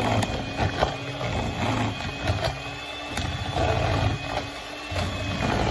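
Electric hand mixer beating cake batter in a bowl, its motor running with a steady hum and occasional short clicks.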